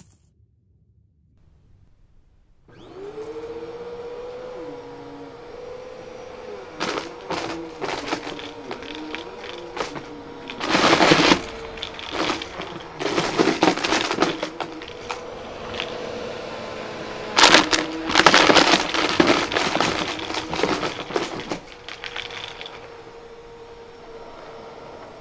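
Bissell upright vacuum cleaner starting up about three seconds in after a near-silent moment, then running with a steady hum as it sweeps a shag carpet. Loose pennies sucked up by its brush roll rattle and clatter through it in several loud bursts.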